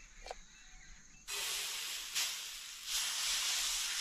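Spinach and moong dal dosa batter hitting a hot iron tawa: a sudden loud sizzle about a second in that keeps hissing steadily as the batter is spread.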